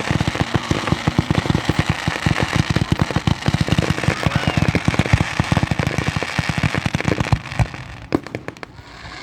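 Fireworks display going off in a rapid, continuous string of bangs and crackles, several a second, thinning into a few scattered bangs near the end.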